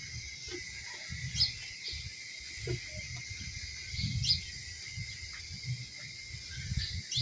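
Birds chirping in the background: a few short, high chirps about three seconds apart over a steady high hiss.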